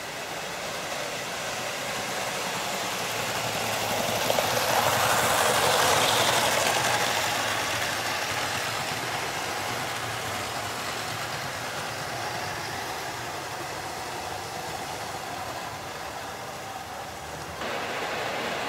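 OO gauge model trains running on track: electric motor hum and wheels rattling over rail joints, growing louder as a train passes close about five to seven seconds in, then steady. The sound changes abruptly near the end.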